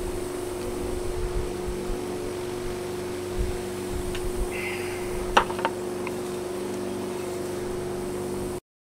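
Steady hum of a running electric motor, with a couple of light clicks about five and a half seconds in; the sound cuts off abruptly near the end.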